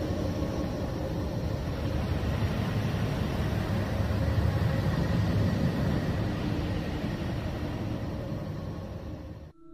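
A steady, dense low rumble with faint held tones above it, cut off suddenly near the end.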